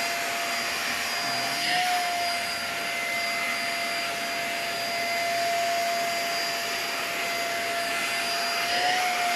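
Deerma DX700 vacuum cleaner running: a steady motor whine over a rush of air. The pitch lifts briefly twice, about two seconds in and near the end.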